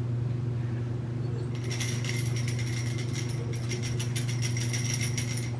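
A small dog toy being shaken over a puppy, making a quick jingling rattle that starts a bit over a second in and lasts about four seconds. A steady low hum runs underneath.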